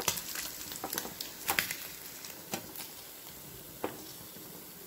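Hot cooking oil sizzling faintly in a frying pan, with a few sharp crackles and pops spread through.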